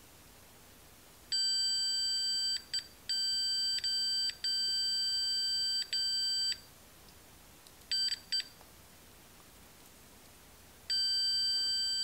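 Continuity-tester beep from a meter clipped across the terminals of a 1930 Philco power switch, sounding as the switch's contacts close and cutting out when they open. One steady beep begins about a second in and holds for about five seconds with a few brief dropouts, then two short blips, then another long beep near the end.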